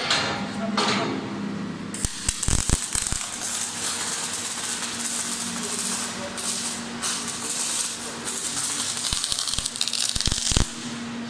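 GeKa PoWer MIG 500 gas-shielded MIG welding arc crackling steadily at about 25 V and 144 A. It strikes about two seconds in with a few sharp pops and stops abruptly near the end.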